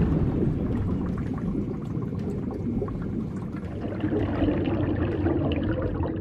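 Watery bubbling and gurgling sound effect, a dense wash with small pops that slowly fades.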